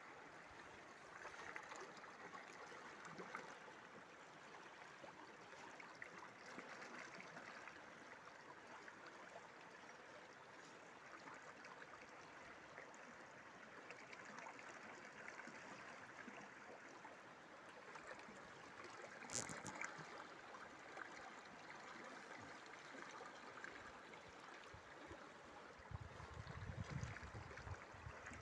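Shallow, clear stream running over stones: a faint, steady burble of water. There is one brief sharp click about two-thirds of the way through and a low rumble near the end.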